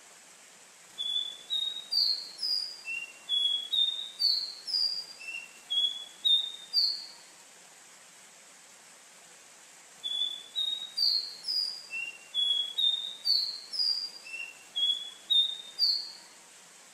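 Caboclinho, a Sporophila seedeater, singing two phrases a few seconds apart. Each phrase is a quick run of about a dozen short, clear whistled notes that slur upward, over a steady faint hiss.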